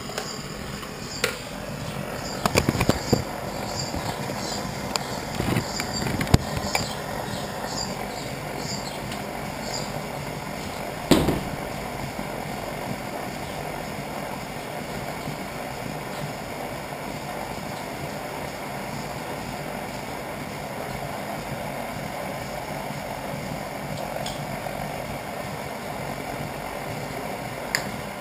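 Camp stove burner alight under a pan, giving a steady rushing noise throughout. Clicks, knocks and handling sounds come over it in the first ten seconds, with a louder knock about eleven seconds in.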